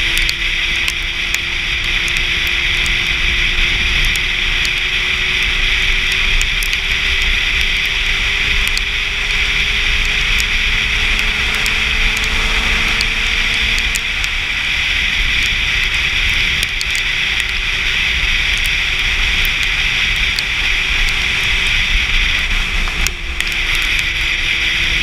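Sport motorcycle riding at speed on a wet road: wind rushing past the helmet camera over a faint engine drone, whose pitch slowly climbs and then drops about 14 seconds in.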